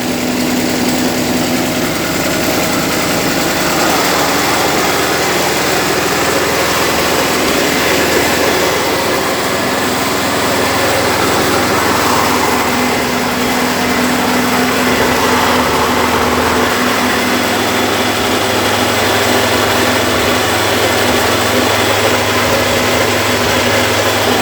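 Honda GX160 single-cylinder four-stroke petrol engine running steadily under load, driving a double-roller soybean dehulling machine, with a continuous rushing mechanical noise from the machine.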